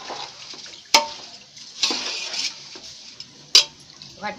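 Metal spoon stirring raw rice and green peas in a metal cooking pot, scraping through the grains, with two sharp clinks of the spoon against the pot, about a second in and again near the end.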